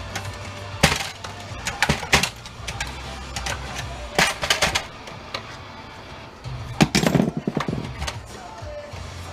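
Plastic and metal parts of an inkjet printer clicking and clacking as it is pried apart by hand. Sharp knocks come in a few clusters, with a longer rattly stretch near the end, over a steady low hum.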